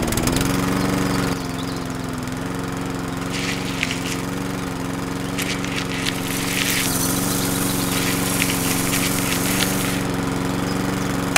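The small DC motor of a homemade miniature sunflower-seed dehuller starting up and running with a steady hum. From a few seconds in, sunflower seeds rattle through the drum in bursts as they are poured in and hulled.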